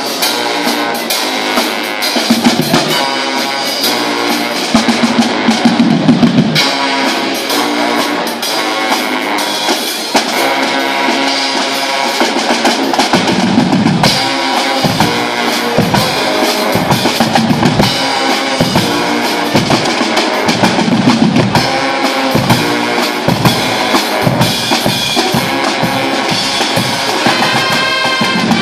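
A Guggenmusik carnival band playing loudly: massed brass (trumpets, trombones, sousaphones) over a drum line of bass drums, snare drums and cymbals keeping a steady beat. The low drum hits grow heavier about halfway through.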